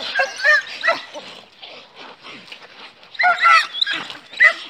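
Several dogs fighting: sharp yelps and barks in loud bursts in the first second, quieter scuffling in between, then another burst of yelping about three seconds in and a short one near the end.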